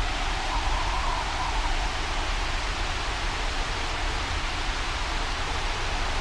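Steady rushing wind and rain noise. A faint whistling band swells and fades over the first couple of seconds.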